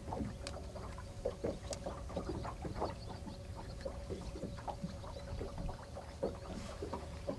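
Rubber-gloved hands working cured roe and lamprey eel onto a hook: soft irregular squishes and small clicks. Under them runs a steady low rumble with a faint constant hum.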